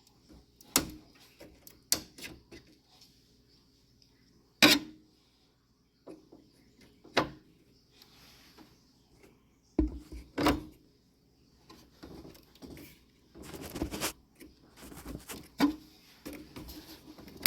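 Memory modules being handled and pressed into a motherboard's DIMM slots. Scattered sharp plastic clicks and knocks, with a short rustle a few seconds before the end, as the slot latches snap shut.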